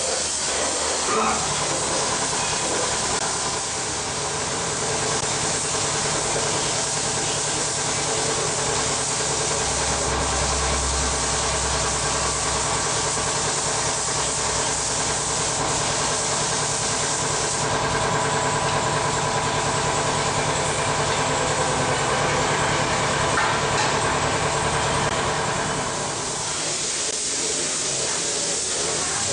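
Compressed-air paint spray gun hissing steadily as it sprays, over a steady machine hum. The hiss grows louder about two-thirds of the way through, then eases off near the end.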